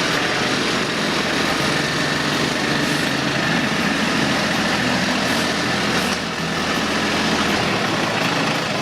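An engine running steadily, with a constant low hum under a broad rushing noise.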